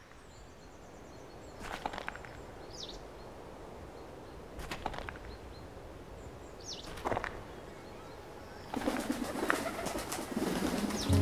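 Pigeons' wings flapping in three short flurries, then a longer, louder flurry in the last few seconds, with two short high bird calls between them.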